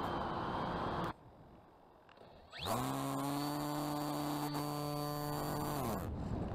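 Electric RC plane motor and propeller running, cut off sharply about a second in. After a short lull a motor spins up with a rising whine, holds a steady buzzing pitch for about three seconds, then winds down.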